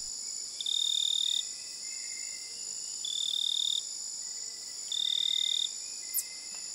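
Night-time insect chorus of crickets: a steady high-pitched buzzing, with a louder, lower trill that sounds three times, each under a second long, about two seconds apart.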